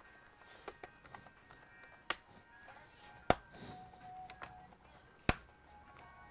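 Faint background music with a few sharp hard clicks and taps, four loud ones spaced a second or two apart.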